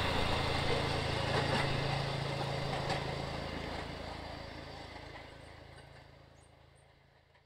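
A railway section car's small engine runs with a steady low hum as it travels along the track, fading steadily away. An occasional faint click comes from the wheels on the rails.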